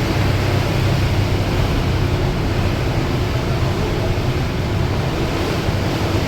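Ferry's diesel engines running steadily with a constant low hum, under a wash of water and wind noise.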